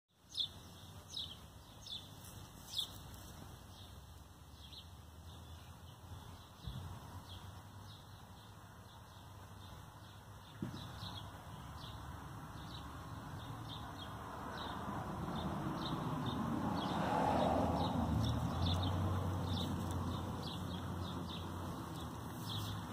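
Garden birds chirping in many short, high calls throughout. A broad rushing noise swells up and fades away, loudest about seventeen seconds in. There are a few soft knocks near the start and one about ten seconds in.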